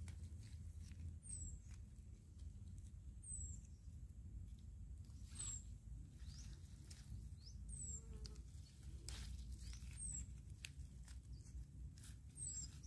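Cape gooseberry plant leaves and stems rustling and snapping lightly as a hand parts the foliage and picks fruit. A faint, short, high chirp falling in pitch repeats about every two seconds.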